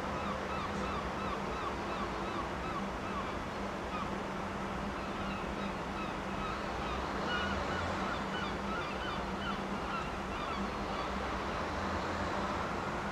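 Birds calling in runs of quick repeated chirps over a steady low hum and an even wash of wind and water noise; a short rising call comes near the end.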